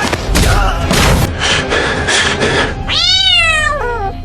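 A cat meowing once about three seconds in, one drawn-out call that rises and then falls in pitch, after a busy stretch of noise.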